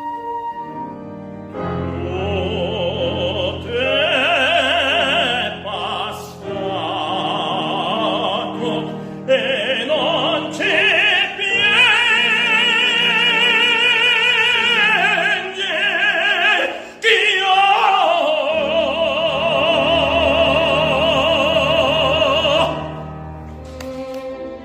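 Operatic classical singing with strong vibrato and long held notes, accompanied by piano. The voice begins about a second and a half in and ends its phrase near the end, leaving a quieter instrumental passage.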